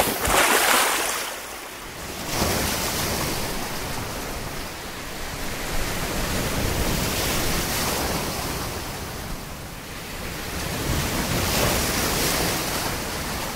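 Sea surf: waves breaking and washing onto the shore, the rush of water swelling and easing several times.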